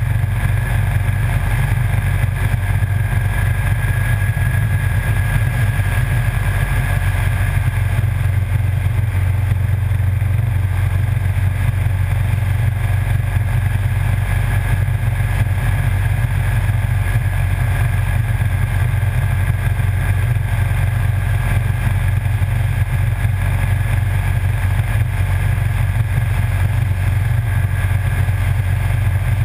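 Motorcycle cruising at a steady speed: a loud, unchanging low drone of engine and wind rush.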